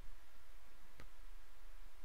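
Quiet room tone with a steady low hum, broken by a single faint click about a second in.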